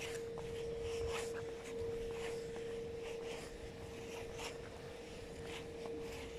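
Footsteps walking on pavement at an even pace, each step a short scuff, over a steady hum that holds one pitch throughout.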